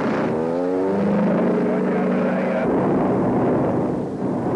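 Aircraft engine noise: a rising whine over the first second that settles into a steady drone.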